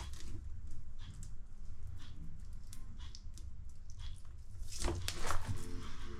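Underwater ambience picked up by an action camera: a steady low rumble with many scattered sharp clicks and crackles, and a louder cluster of clicks about five seconds in.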